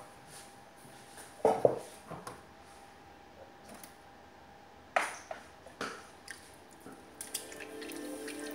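A few wet splats as water is splashed by hand onto a lump of earthenware clay on the potter's wheel head, the loudest about a second and a half in. Near the end a rising hum as the electric wheel speeds up for centering.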